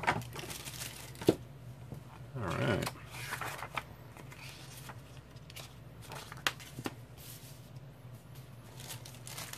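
Paper user-guide booklet being handled and its pages leafed through, with light rustles and scattered soft taps as it is set down on a table. A sharp tap about a second in is the loudest sound, and there is a brief murmur of voice a little later.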